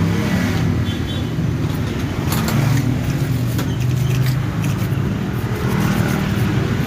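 Motor vehicle engine running steadily with a low drone, with faint scattered clicks and scraping of a hand tool working on a scooter brake caliper.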